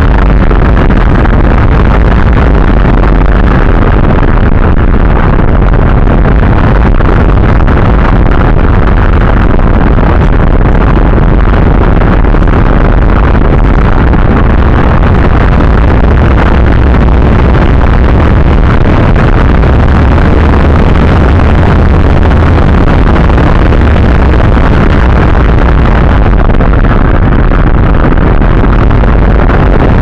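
Strong wind blasting over the microphone of the onboard camera on a flying AXN Floater Jet RC plane: a loud, distorted, steady rumble that overloads the recording.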